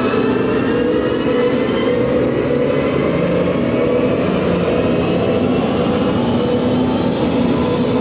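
Live harsh-noise electronic performance: a loud, dense wall of distorted noise with several tones slowly rising in pitch through it.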